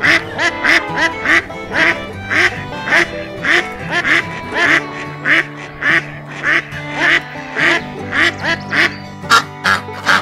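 Duck quacking over and over, about two quacks a second, over background music.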